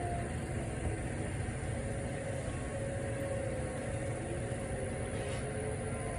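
Distant outdoor warning sirens sounding a test, heard as faint, slowly wavering tones over a steady low rumble.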